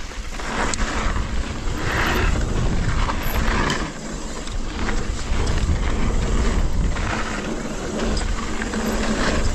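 A mountain bike being ridden on a trail: low wind rumble buffeting the camera microphone under a steady rush of tyre and trail noise, with scattered short knocks and rattles from the bike.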